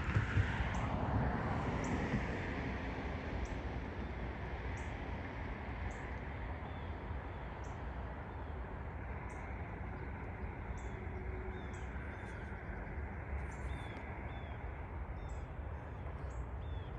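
Small birds chirping outdoors, short high chirps repeating about every second and a half, with a few slurred calls later on, over a steady low rumble; a louder hiss fades out over the first couple of seconds.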